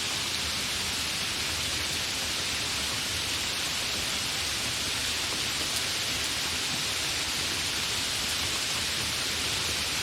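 Steady, fairly heavy rain: an even hiss of falling rain without thunder.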